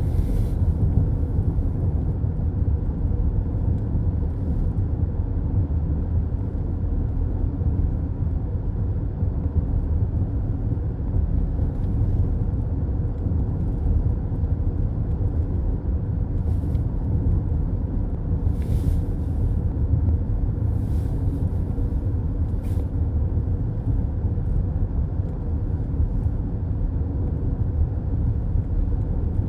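Road noise of a car cruising on a highway, heard from inside the cabin: a steady low rumble of tyres and engine, with a few brief faint swishes now and then.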